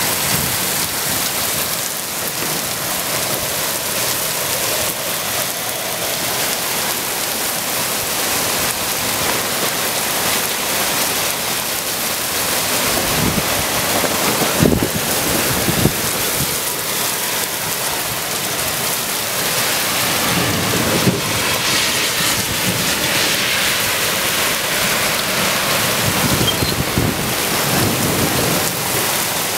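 Heavy rain pouring down onto a paved street and sidewalk, a loud, steady hiss of downpour. A few brief, sharp pops stand out over it about halfway through and again a little later.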